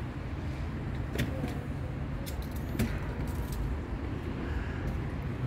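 Two cats chewing dry kibble, with a few short sharp crunches and clicks, over a steady low rumble.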